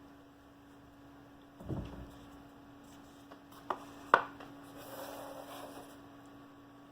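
Unpacking a watch box by hand: a dull thump about two seconds in, two sharp clicks near the middle, then a soft rustle of packaging, over a steady mains hum.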